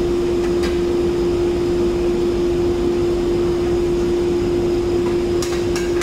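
Steady machine hum holding one constant mid-pitched tone over a noise bed. A few light handling clicks come through, one about half a second in and two close together near the end.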